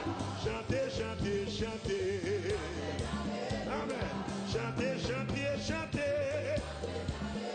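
Live gospel music: a man sings into a microphone over a band with bass and drums keeping a steady beat.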